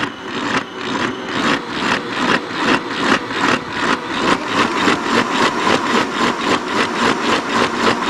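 Electric stand mixer running, its beater working cake batter in a stainless-steel bowl: a steady motor hum with a regular beat about three times a second.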